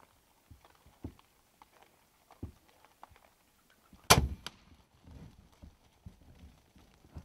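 Feral hogs feeding with scattered small crunches and clicks, then about four seconds in a single sharp crack of a bow shot as an arrow is loosed at a hog. After it the hogs scatter, rustling off through the grass.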